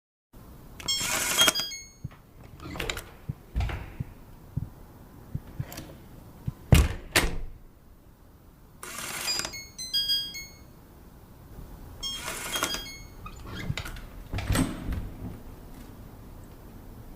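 Digital door lock on a front door being worked: short electronic beeps at several pitches over bursts of mechanical noise, with sharp clicks and clunks from the lock and handle. The loudest is a quick double clunk about seven seconds in.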